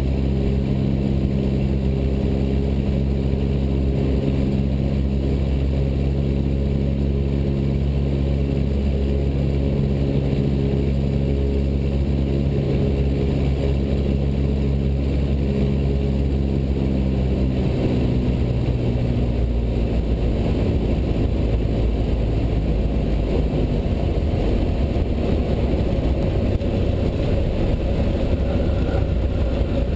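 Cessna 172 Skyhawk's piston engine and propeller running with a steady drone, its pitch dropping and the tone thinning about two-thirds of the way through as power comes back on the approach to land.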